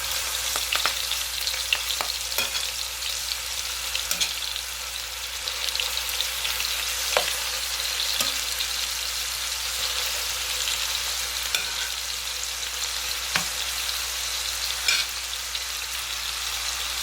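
Cubed chicken breast sizzling as it sears in a hot pan, a steady frying hiss with a few sharp taps scattered through it, the loudest about seven seconds in.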